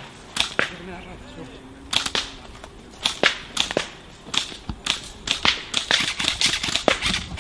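Airsoft guns firing: many sharp cracks, singly and in quick pairs, at irregular intervals, like an exchange of fire between players. Faint voices sit underneath.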